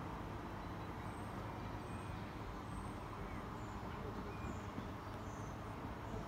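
Steady low rumble of distant road traffic, with a few faint, short high chirps.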